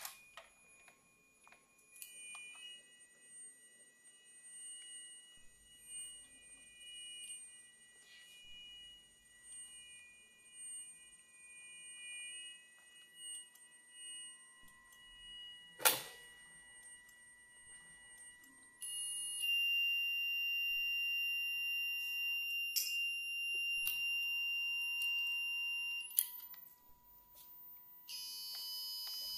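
Experimental electronic improvisation: several steady high-pitched electronic tones layered and switched on and off, with sharp clicks where they change and the loudest click about sixteen seconds in. From about nineteen seconds a louder cluster of high tones sounds together, then cuts out and returns near the end.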